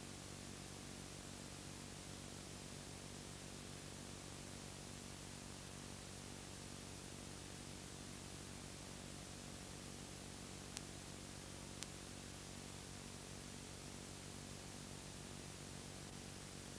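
Steady hiss and low hum of a silent soundtrack, with two faint clicks about eleven and twelve seconds in; no program audio.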